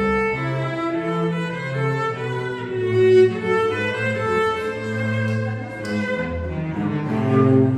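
Cello and double bass duet, both bowed, playing a tango melody in sustained notes that move from pitch to pitch over a low bass line.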